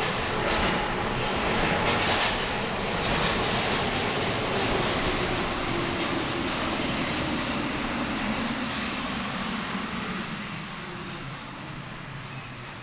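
Paris Métro Line 11 MP73 rubber-tyred train running and slowing down, its running noise falling in pitch and easing off toward the end.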